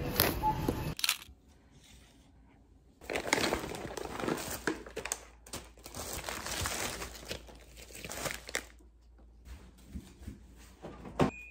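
Thin plastic grocery bags crinkling and rustling as items are pulled out of them, from about three seconds in until near the end, with a sharp click shortly before the end.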